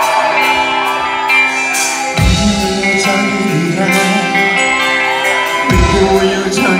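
Live pop band playing: electric guitars, keyboards, bass and drums, with a singer's voice over it. Deep bass notes come in about two seconds in and again near the end.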